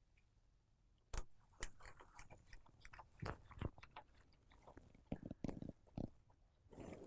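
Small irregular clicks and taps of a precision screwdriver and tweezers handling and driving a tiny screw into an iPhone's metal frame.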